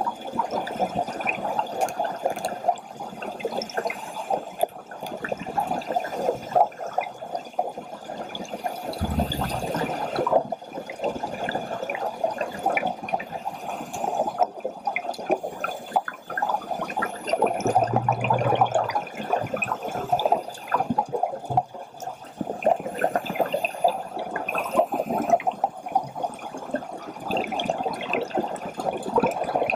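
Underwater sound picked up through a dive camera's housing: a steady, dense crackle of tiny clicks, with two brief low rumbles, about nine and eighteen seconds in.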